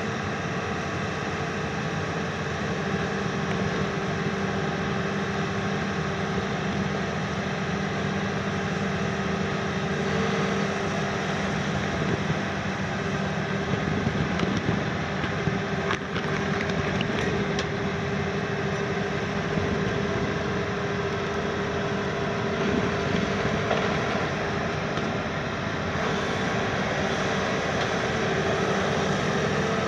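The 210 kW diesel engine of a KMC 380 S long-front demolition excavator running steadily under working load, with a constant hum as the boom and grapple work. A few sharp knocks come about halfway through.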